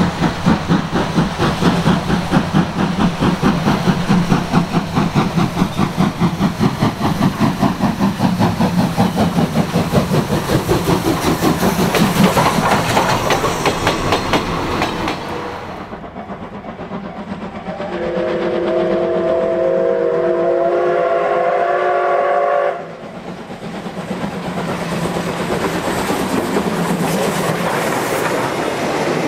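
C57 180 steam locomotive working hard, its exhaust chuffing in a rapid, even beat as it passes, then its coaches rolling by. About halfway through, a long steam whistle blast holds for around five seconds, followed by coaches clattering over the rail joints.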